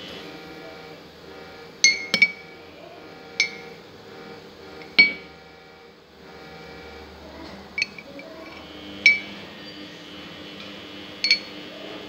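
A metal spoon clinking against a clear glass mug of water as it is dipped and stirred. There are about eight sharp, briefly ringing clinks spaced a second or two apart, a few in quick succession around two seconds in, with the loudest about five seconds in.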